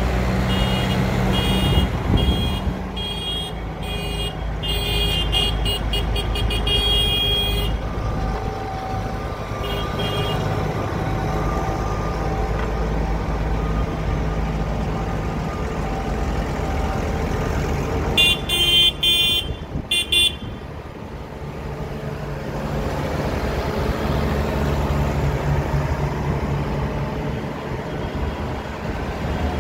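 Large diesel tractors, a John Deere and a New Holland T7, running and driving past slowly. A high-pitched horn toots in a rapid series of short blasts over the first several seconds and again briefly about two-thirds of the way through.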